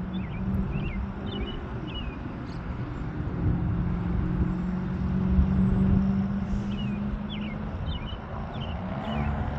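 Business jet at full takeoff power, a steady low rumble heard across the airfield as it rolls and lifts off. A small bird chirps a few times near the start and again near the end.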